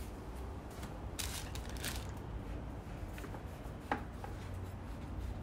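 Knife sawing open a homemade pita bread on a wooden table: a few short scraping strokes through the crust, then a light knock of the blade about four seconds in.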